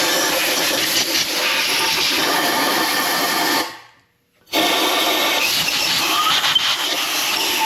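Compressed-air blowgun hissing steadily as it blows through the water passages of a cylinder head, clearing out gunk and debris. The sound cuts out briefly about four seconds in, then resumes.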